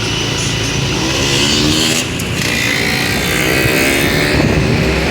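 Intercity bus engine running and revving as it drives past, its engine note rising and falling, over loud road noise.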